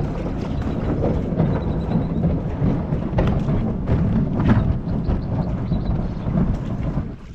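Wind buffeting the microphone: a heavy, rough low rumble with irregular knocks, cutting off suddenly near the end.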